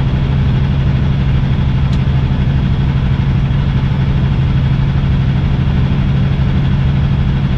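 Semi truck's diesel engine and road noise on the move: a steady low drone with no change in pitch.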